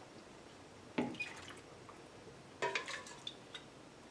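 Brine splashing and dripping in a glass jar of cucumbers, in two short bursts about a second and a half apart, followed by a couple of faint ticks.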